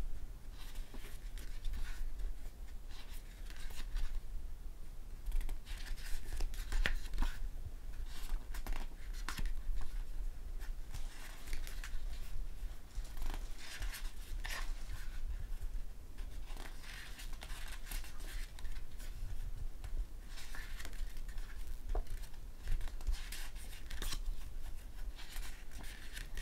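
Glossy pages of a thick photo book being turned by hand: short paper swishes and rustles about every couple of seconds, over a faint steady low hum.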